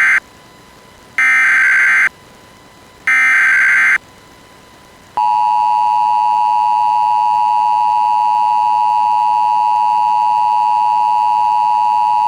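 Emergency Alert System tones. The tail of one burst and then two more bursts of SAME header data, each a harsh digital squawk about a second long with a second's gap between them. About five seconds in comes the steady two-tone EAS attention signal, which holds to the end.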